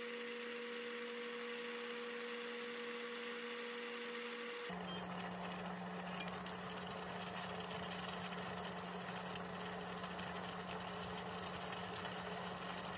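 A steady electric hum with a fan-like hiss, its pitch dropping at a cut about five seconds in, with a few light clicks of chopsticks and scissors against the pot.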